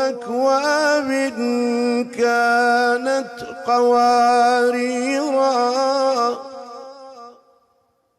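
A male reciter chanting Quranic verses in melodic tajwid style, stretching the words into long held, ornamented notes. The voice fades away near the end.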